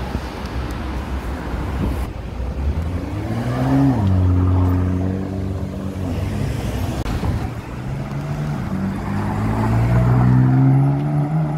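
BMW M2's turbocharged straight-six accelerating hard: its engine note climbs about three seconds in, then holds steady. Later another car's engine note rises gradually, growing louder toward the end.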